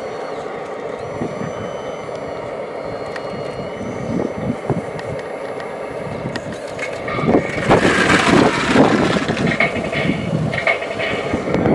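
Radio-controlled model trucks and a model wheel loader running, their electric drives and gears whirring with a thin high whine. From about seven seconds in it turns louder and gritty as the loader's bucket pushes into sand.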